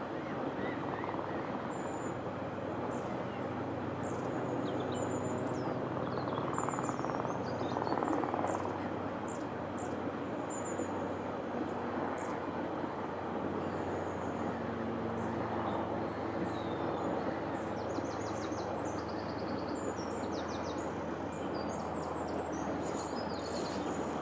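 Small birds chirping and singing in short, high phrases again and again, over a steady rushing background noise.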